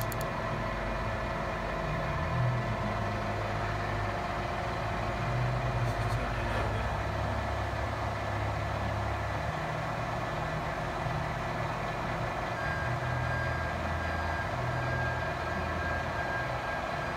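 Clausing CV-2060 CNC lathe running a program: a steady machine hum with a low drone that shifts in level and faint steady whining tones, as the spindle turns and the carriage feeds along the Z axis.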